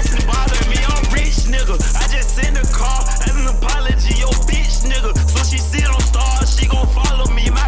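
Hip-hop cypher track playing: a rapped verse over a beat with deep, sustained bass notes and fast, ticking hi-hats.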